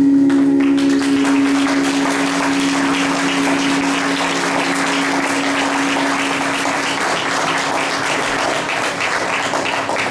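Audience applauding, starting about half a second in, while the music's last sustained note rings on underneath and slowly fades.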